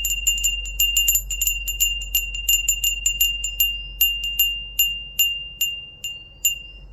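A small bell rung repeatedly with a clear, high ring. Strikes come fast at first, then space out and fade near the end.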